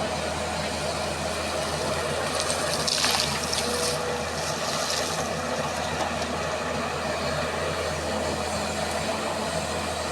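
Diesel engine of a JCB 3DX backhoe loader running steadily, with a brief hiss from about two and a half to five seconds in.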